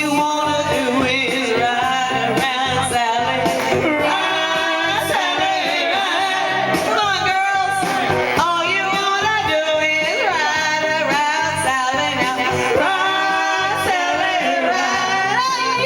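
A band playing with a lead vocalist singing over a steady beat.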